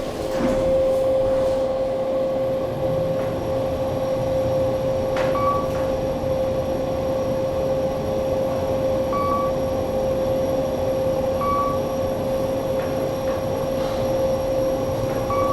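Kone EcoDisc traction elevator running as the cab travels up: a steady whine over rumbling ride noise, with three short beeps along the way.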